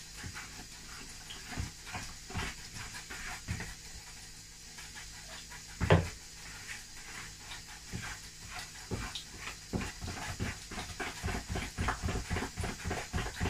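Hand mixing a wet, yeasted puff-puff batter in a bowl: squelching and slapping strokes that come faster and steadier, about three or four a second, in the last few seconds, with one louder knock about six seconds in.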